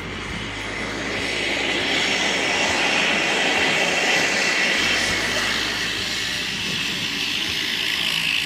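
Aircraft engine passing overhead: a steady rushing drone that swells over the first couple of seconds and then holds.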